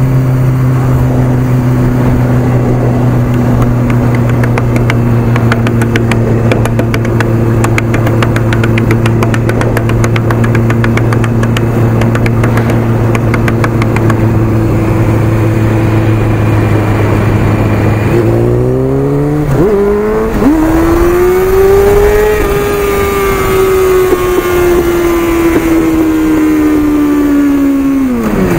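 Honda CBR600 F4i's inline-four engine heard from the rider's seat: a steady drone at constant speed, then about two-thirds through it revs up with two quick gear changes and winds down slowly, falling sharply right at the end.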